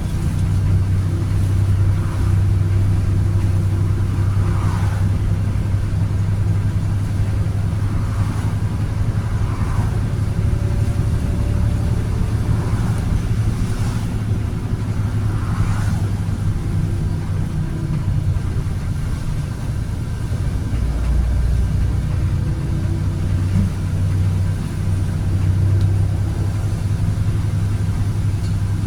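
Volvo B7RLE bus with a Voith automatic gearbox on the move, its engine droning steadily with the load easing and picking up again around the middle. Faint short rising whines come every few seconds in the first half.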